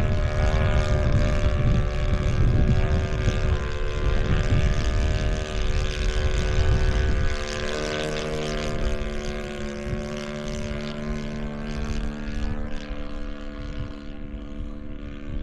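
A radio-control model airplane's engine and propeller droning at a steady pitch. Wind rumbles on the microphone until about halfway through, then eases off.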